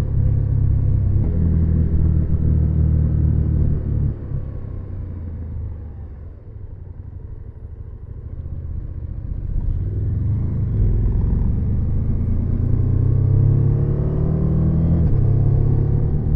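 KTM 790 Adventure's parallel-twin engine running steadily, then dropping to a lower, quieter note from about four seconds in as the bike slows for a hairpin. From about nine seconds in it pulls away again, revs rising as it accelerates out of the bend.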